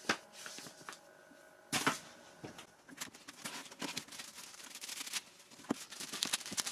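Handling noises of a paper instruction booklet and packaging: a louder rustle right at the start and another just under two seconds in, then scattered light clicks and rustles.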